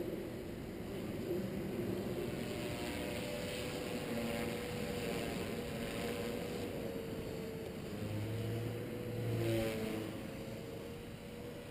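Walkera V450D01 electric RC helicopter flying overhead, its motor and rotor whine steady with gentle rises and falls in pitch, swelling louder about nine seconds in.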